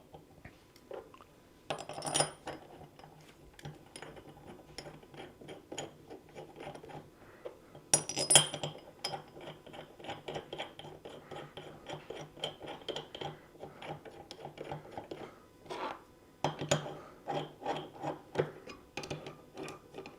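Steel parts of a load cell mounting kit being handled and fitted together: irregular clicks, scrapes and small knocks of metal on metal, with two louder ringing clinks about two seconds and eight seconds in.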